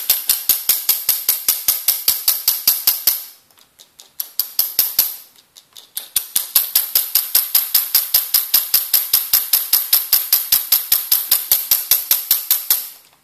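Derminator microneedling pen's motor driving the needle cartridge in and out at medium speed: a rapid, even clicking. It fades away a few seconds in, starts again about three seconds later, and stops near the end.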